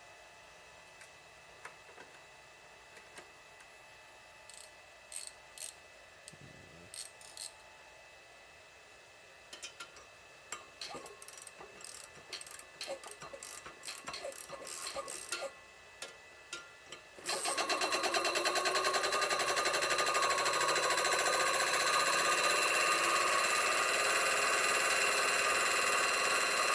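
Scattered light clicks and taps, then about two-thirds of the way in a Cornelius 3000 PSI high-pressure air compressor starts abruptly and runs steadily.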